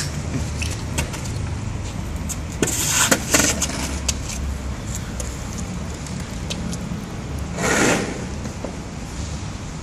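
Longboard wheels rolling over a concrete court with a steady low rumble, scattered clicks, and two louder noisy bursts: one about three seconds in and one near eight seconds.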